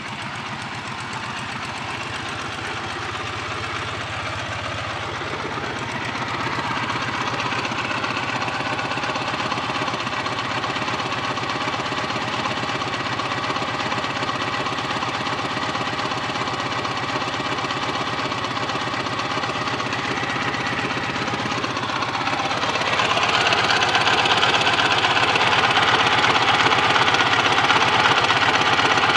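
Dnepr MT 10-36 motorcycle's flat-twin engine running with a knock, the strange running whose cause the owner is trying to find. The revs rise a little about six seconds in and rise again, louder, from about twenty-three seconds.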